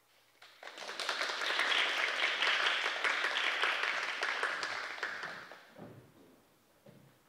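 Small audience applauding, starting about half a second in and dying away after about five seconds.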